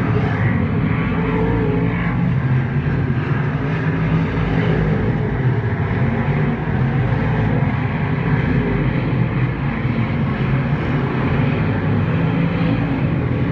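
Several dirt-track stock cars running laps together, their engines making a steady, loud drone.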